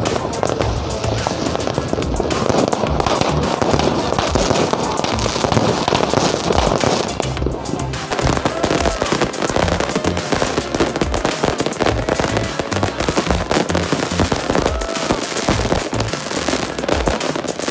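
Fireworks crackling and popping without a break: firecrackers and ground fountains spraying sparks, with aerial fireworks bursting. Music plays underneath, more clearly from about halfway through.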